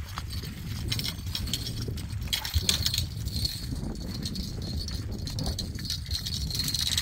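Wind rumbling on the microphone, with splashing and scattered clicks and rattles as a hooked fish is reeled to the bank and lifted out of the water on the line. The clicks are loudest about two and a half seconds in.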